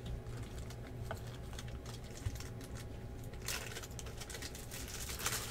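Small clicks and taps of trading cards being handled on a table, with two louder crinkling rustles of clear plastic, about three and a half and five seconds in.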